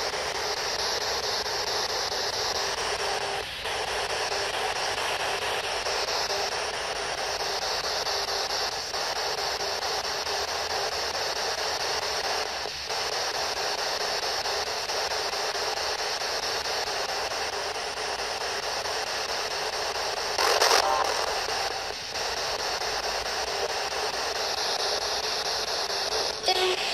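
P-SB11 spirit box radio sweeping through radio frequencies, giving a steady static hiss with a few brief drop-outs and a louder crackly patch about 20 seconds in.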